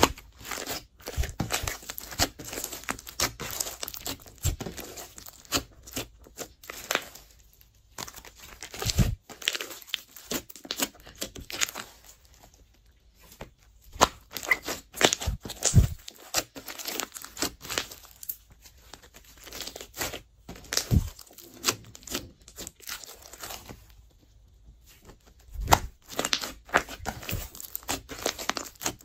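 Hands folding, stretching and pressing a large mass of glossy slime, making sticky crackling pops and squelches. The sound comes in bursts of quick clicks with short quieter pauses between them.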